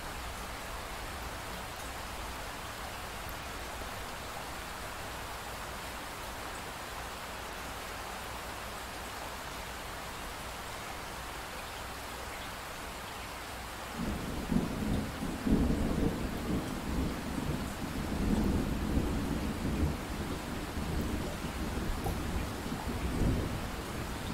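Steady pink-noise hiss. About halfway through, a rumbling thunderstorm comes in abruptly over it, louder and rolling unevenly until the end.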